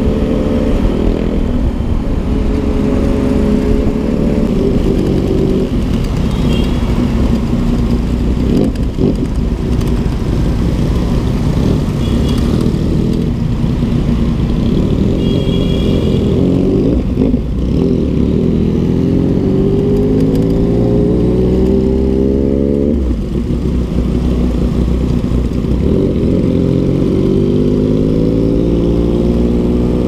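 Motorcycle engine under way, revving and accelerating with its pitch climbing over several seconds. It drops suddenly about 23 seconds in, then climbs again.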